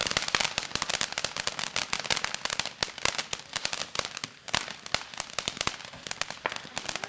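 Fireworks crackling: a rapid, irregular run of sharp cracks and pops that thins out briefly about four seconds in, then picks up again.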